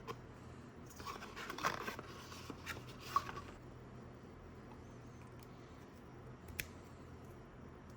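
Handling noise from unboxing: a couple of seconds of rustling and scraping with a sharp click, then a single light click a few seconds later, over a faint low hum.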